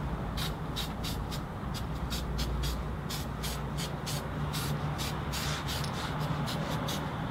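Aerosol spray gasket sealant being sprayed in a rapid series of short hissing bursts, over a steady low hum.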